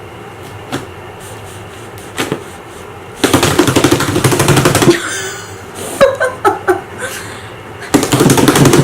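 Homemade fluffy slime made from glue and shaving cream being squeezed and kneaded by hand, giving off a rapid, dense crackling and popping as trapped air is pressed out. It comes in two bursts, the first about three seconds in and the second near the end, with a few faint ticks before them.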